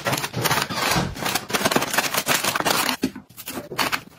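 Busy rustling and rubbing with many small clicks, as of objects being handled and moved about. It eases off about three seconds in and picks up again briefly near the end.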